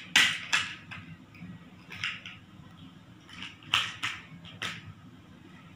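Large plastic toy building blocks clacking against each other as a small child rummages through a pile of them: a couple of sharp clacks at the start, one about two seconds in, and a quick run of four near the end.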